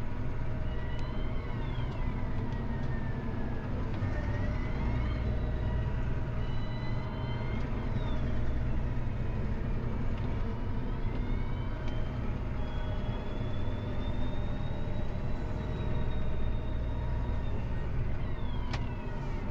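Tractor engine running steadily under a loaded slurry tanker, with whining tones that slowly rise and fall above the engine note.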